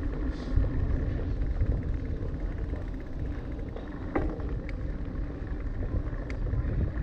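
Bicycle rolling over brick and stone paving: a steady low rumble with a few sharp clicks or rattles about four and six seconds in.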